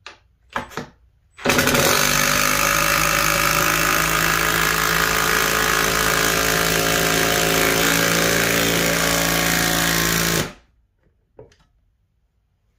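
Cordless impact driver hammering steadily for about nine seconds as it drives a 2-inch lag bolt through the clamp rack into a wall stud, then stopping abruptly. A couple of short clicks come just before it starts.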